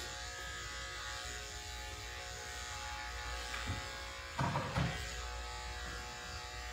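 Corded electric dog clippers running with a steady buzzing hum while clipping a dog's face. A couple of brief knocks sound about four and a half seconds in.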